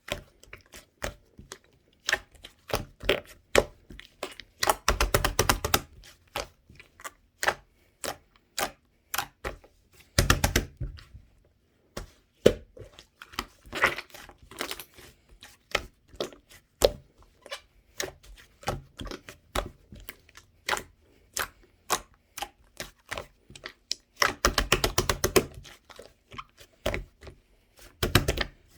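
Hands squishing, poking and stretching a soft mint-chocolate mixed slime: a steady run of small wet pops and clicks as air pockets burst. There are longer, denser runs of crackling about five, ten and twenty-five seconds in.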